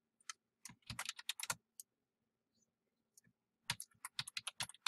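Typing on a computer keyboard in two quick runs of keystrokes, one about a second in and another near the end.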